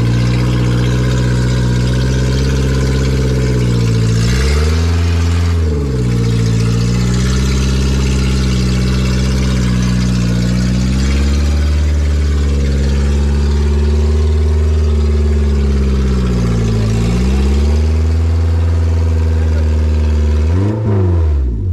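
Engine of a 4x4 stuck in a mud bog, running hard under load as it is pulled out on a recovery line. The revs dip and climb back several times, then fall away sharply at the end.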